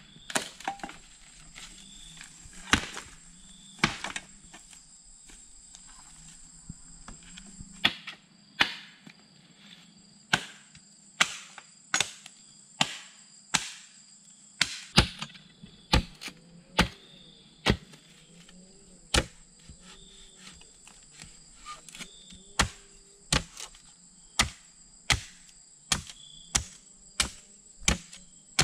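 Machete blade striking bamboo in sharp chops: a few spaced blows at first, then a steady run of strikes a little faster than one a second. Insects drone steadily and high-pitched underneath.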